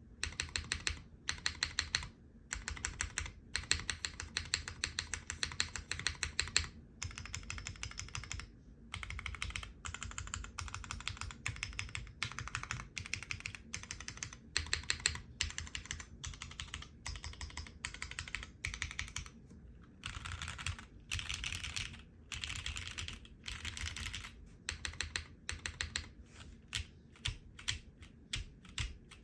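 Continuous typing on a custom mechanical keyboard with lubed, filmed Cherry MX Black linear switches on an ABS plate and GMK keycaps: rapid keystrokes in runs with brief pauses.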